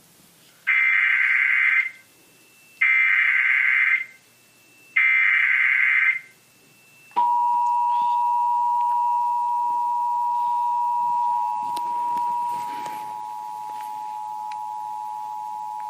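Emergency Alert System signal opening a Required Monthly Test: three bursts of SAME digital header data, each about a second long with short gaps, then about seven seconds in the steady two-tone EAS attention signal, held for roughly nine seconds.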